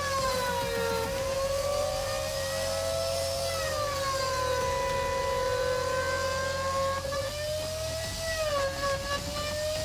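Desktop CNC router moving through a job: its stepper motors whine in several tones that glide up and down in pitch as the axes speed up, slow and change direction.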